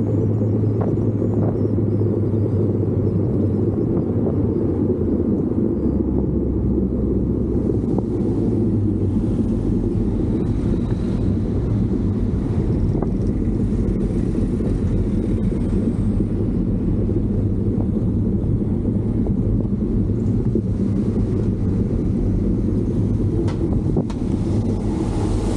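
Steady low rumble of a moving vehicle, with a constant low engine hum and no letting up.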